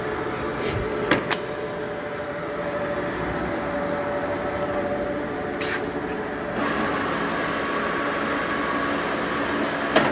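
Geminis GE 650 centre lathe running, its geared headstock giving a steady mechanical whine. There are sharp clunks about a second in as the speed levers are worked, and the sound grows brighter and busier about two-thirds of the way through.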